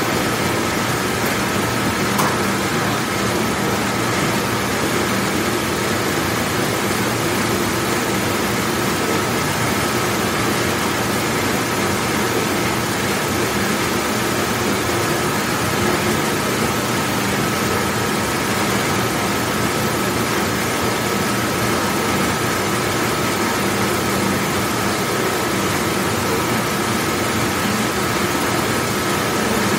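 Large commercial dishwashing machine running: a steady wash-and-motor noise with a constant high tone over it and a faint click about two seconds in.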